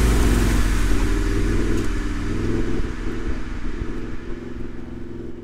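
Toyota VDJ78 Land Cruiser Troopcarrier's 4.5-litre V8 turbo-diesel running through a 3-inch exhaust as the truck drives through mud, steadily fading out.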